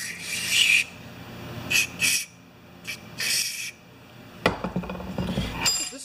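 Aerosol spray can hissing in three short bursts as cleaner is sprayed through a brass compressor valve body, followed by a knock about four and a half seconds in.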